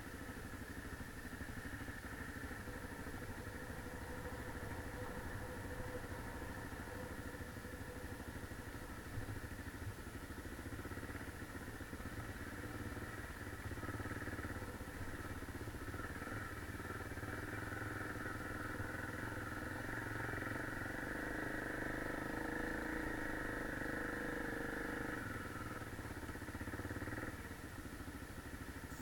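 Honda XR250 dirt bike's air-cooled single-cylinder four-stroke engine running as it rides over rough grassy ground. The engine grows louder about halfway through and drops back shortly before the end.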